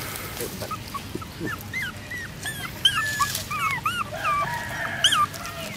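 Newborn puppies whimpering and squeaking: a rapid string of short, high-pitched cries that rise and fall, starting about a second in and stopping just before the end.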